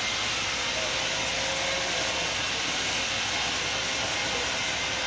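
Steady, even hiss, level throughout, with a faint steady hum under it.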